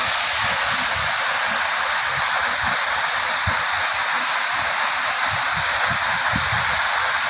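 Waterfall rushing steadily, a constant hiss of falling water and spray.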